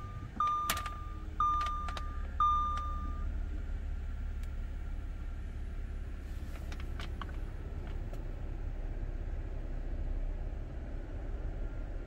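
2010 Audi A6's dashboard warning chime beeps three times, about a second apart: the reminder to press the brake while selecting a gear. Under it, the supercharged 3.0-litre V6 idles with a steady low rumble, and a few faint clicks come later.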